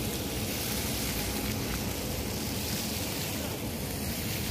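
Steady hiss and splash of small fountain jets spraying into a shallow reflecting pool.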